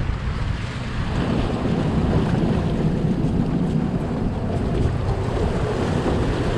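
Steady wind noise on the microphone over water rushing along the hull of a fishing boat under way.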